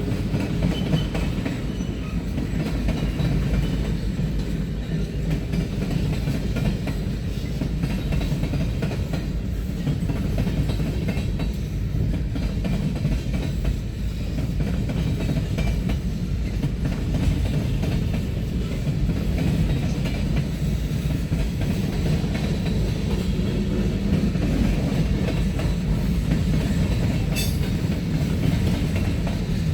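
Freight cars of a Norfolk Southern manifest train rolling past, a steady heavy rumble of steel wheels on rail. There is a brief sharp high sound near the end.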